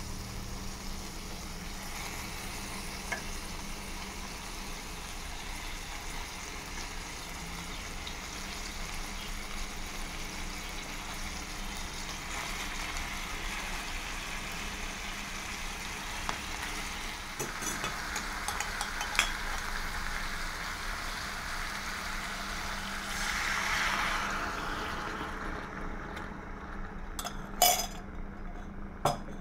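Thin slices of pork loin sizzling in a frying pan, the sizzle swelling a few times as the meat is moved, with occasional light clicks of chopsticks against the pan. Near the end the sizzle drops away, leaving a couple of sharp clicks.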